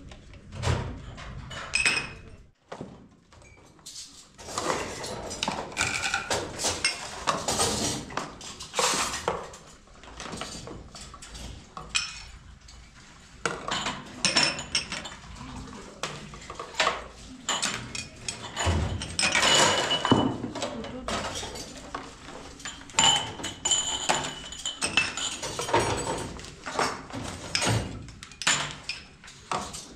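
Dishes and pots clattering and clinking as they are handled, with repeated short knocks and an occasional brief metallic ring.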